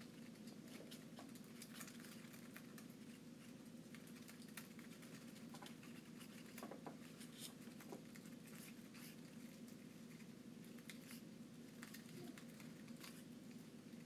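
Cockatiel's beak nibbling and tearing at a paper flower: faint, irregular little clicks and crinkles over a steady low room hum.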